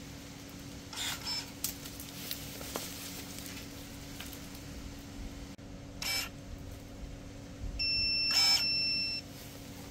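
Kebtek KTE-35 cordless pruning shears with a brushless motor: short bursts of the motor-driven blade closing about a second in and again about six seconds in. Near the end a steady high beep lasting over a second, with a loud burst in its middle.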